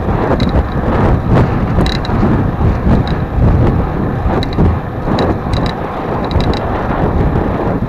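Wind buffeting the microphone of a camera on a moving road bicycle, a loud, uneven rumble over the hiss of the tyres on asphalt. Faint short ticks sound now and then.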